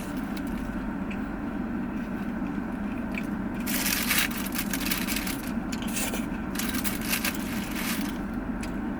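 Biting and chewing a crunchy banh mi baguette: crackly crunches about four seconds in and again around seven seconds, over a steady low hum.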